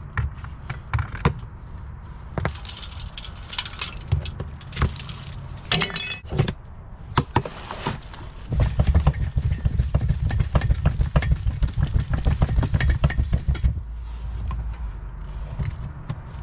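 Compost being raked out of a plastic compost tumbler with a three-tined metal hand cultivator: scraping and clinking strokes, with loose compost dropping into a plastic tub below. The strokes come quick and dense from a little past halfway on.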